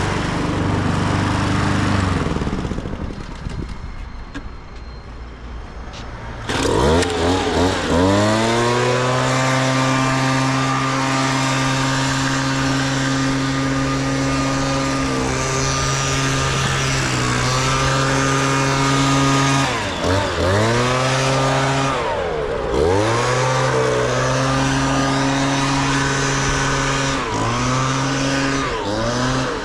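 A lawn mower engine runs briefly and winds down about two seconds in. About six and a half seconds in, a handheld garden power tool starts up and runs at high speed. Its pitch drops and climbs back several times as the throttle is eased off and squeezed again.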